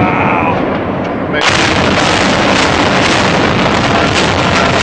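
Demolition charges firing in a high-rise implosion: a dense rattle of blasts starts suddenly about a second and a half in, with sharp cracks standing out through it.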